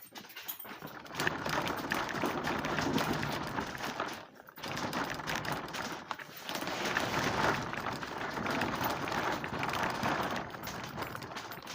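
Casters of a wooden dresser turned tool box, loaded with tools, rolling and rattling across the floor in three pushes, with short pauses about four and six seconds in.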